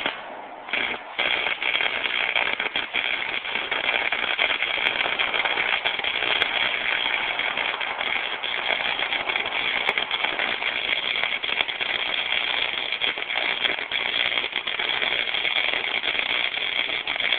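Electric welding arc struck with two short sputters, then burning steadily with a dense, even crackle and hiss as a weld is laid.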